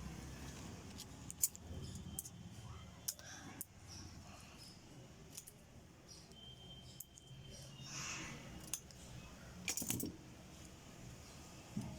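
Scattered light clicks and taps with faint rustling, from hand work on a ceiling fan's stator while insulation paper is fitted into its slots; a quick run of clicks comes about ten seconds in.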